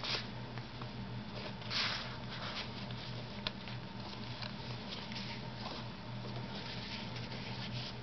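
Paper rustling and soft scraping as the pages of a handmade paper journal are turned and handled, with a louder rustle about two seconds in and a small sharp tick midway. A steady low hum runs underneath.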